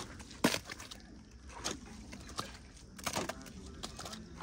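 Wet brick clay squelching and slapping as it is worked and turned over in the mud pit. The loudest is a sharp slap about half a second in, followed by a few softer wet sounds.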